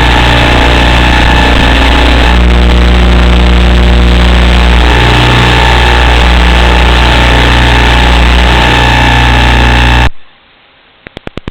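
FPV drone's motors and propellers running loud and steady, with the pitch shifting up and down now and then as the throttle changes. The sound cuts off suddenly about ten seconds in, followed by a few faint clicks near the end.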